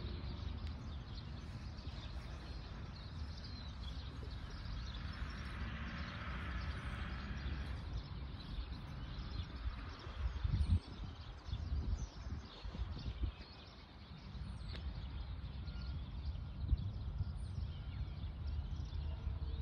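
Wind rumbling unevenly on a phone's microphone while riding along a park path, with a few faint high bird chirps.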